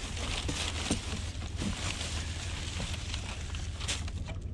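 A vehicle engine idling with a steady low hum, with wind noise on the microphone and a few light clicks.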